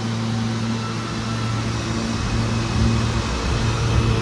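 R160 subway train pulling out of the station. A steady low electric hum gives way to a low rumble that builds and grows louder from about three seconds in, as the train gathers speed.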